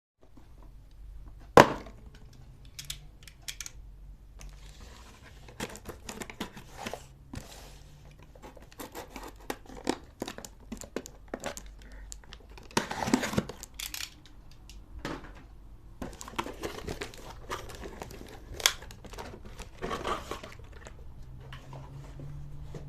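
Packaging being opened and handled by hand: crinkling, tearing and scattered clicks and knocks, with a loud sharp click about a second and a half in and another later on.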